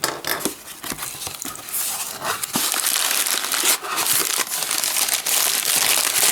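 Packaging being opened by hand: crinkling and rustling of wrapping material with many small clicks. It grows louder and denser about two seconds in.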